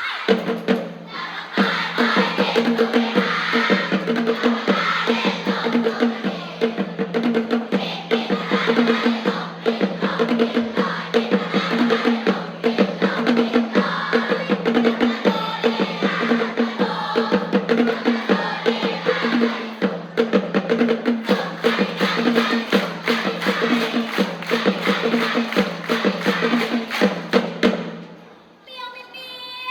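Cheer-routine music with a fast, steady drum and percussion beat, stopping about two seconds before the end.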